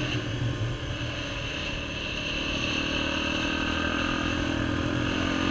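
Yamaha Raptor sport quad's single-cylinder four-stroke engine running under way, easing off about a second in, then pulling again with its pitch rising gently toward the end.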